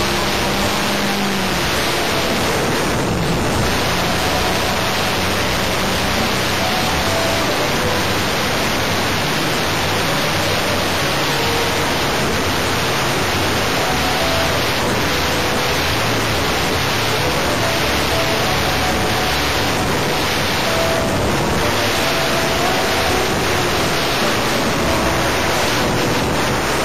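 Steady, loud rushing noise of an RC plane in flight, heard through its onboard camera's microphone: airflow over the mic mixed with the buzz of the O.S. Max .25 LA two-stroke glow engine, whose pitch wanders slightly.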